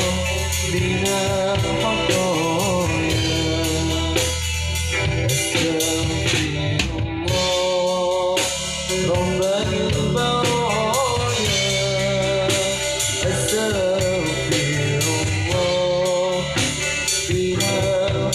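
Band playing a sholawat devotional song: drum kit beating steadily under bass and a wavering melody line.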